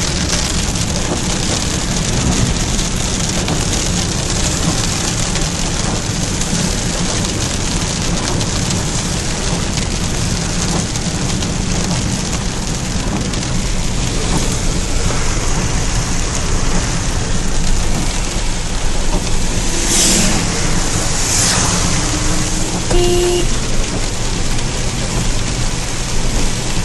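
Heavy rain falling steadily, a constant hiss and patter. About twenty seconds in there are two brief swishes, then a short pitched sound.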